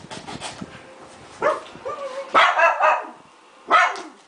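A dog barking several times: a single bark about a second and a half in, a quick run of three loud barks around the middle, and one more near the end.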